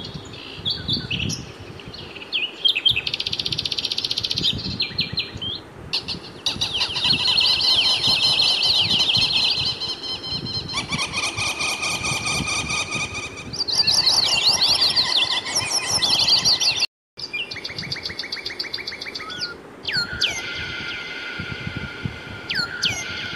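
Birds singing, with rapid chirps and trills throughout and a few downward-sweeping calls near the end. The track cuts out for a moment about seventeen seconds in.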